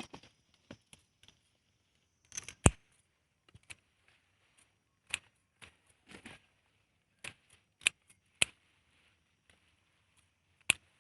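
Irregular sharp clicks and short scrapes of hands and a hand tool working through soil and vines while digging up sweet potatoes. There are about a dozen separate clicks with quiet gaps between them, the loudest about a third of the way in.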